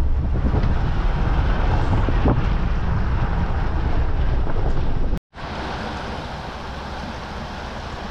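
Car driving on a rough, muddy dirt road: a steady rumble of tyre, road and engine noise with wind buffeting the microphone. About five seconds in it cuts out for an instant and comes back quieter.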